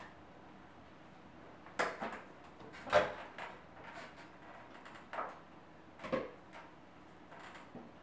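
A string of knocks and clunks, the loudest about three seconds in: a folding metal step stool being climbed and an over-the-range microwave's door opened, then a dish handled inside to take out the cooked meatloaf.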